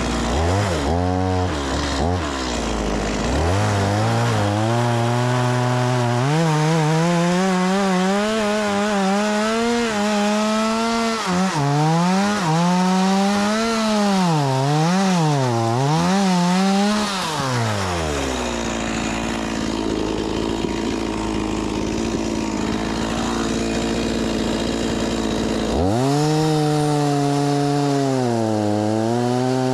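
Stihl MS 180 two-stroke chainsaw cutting firewood, revving high with its pitch rising and falling repeatedly. It drops to a lower, steadier note for several seconds about two-thirds of the way through, then revs up again near the end.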